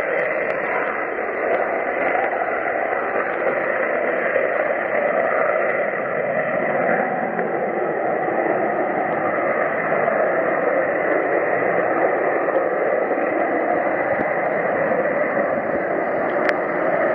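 Panavia Tornado's twin RB199 turbofan engines in afterburner on take-off and climb-out: a loud, steady rush of jet noise.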